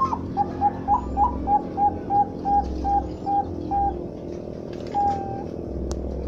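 Zebra dove (Bangkok-strain perkutut) cooing: a quick run of about a dozen short, even notes, some three a second, then one longer drawn-out note about five seconds in.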